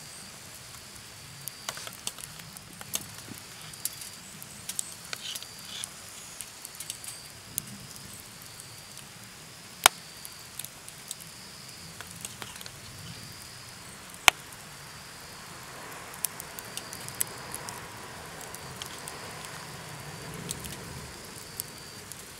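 Wood fire crackling in a small fire pit: scattered sharp ticks and pops, with two much louder pops about ten and fourteen seconds in. A steady high insect trill runs behind it.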